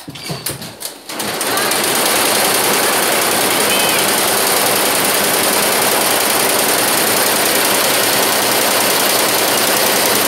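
Multi-head computerised embroidery machine: a few sharp clicks, then about a second in it comes up to full running and stitches on with a loud, steady mechanical din.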